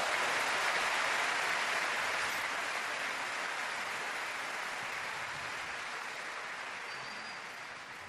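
Crowd applauding after a table tennis point is won, loudest at the start and fading slowly.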